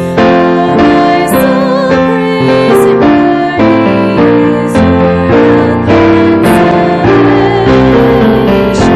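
A hymn played on piano, with a voice singing along; the chords change at a steady pace.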